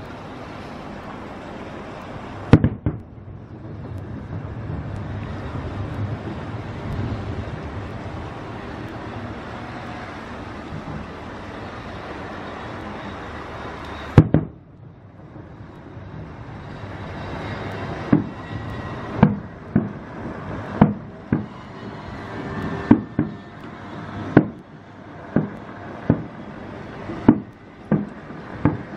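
Aerial fireworks bursting: two sharp bangs near the start, a single loud bang about halfway, then a quick run of bangs roughly one a second toward the end, with a steady low rumble between them.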